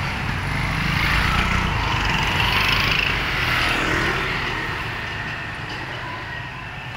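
Street traffic: a motor vehicle's engine runs close by, swells for the first few seconds, then fades as it moves away.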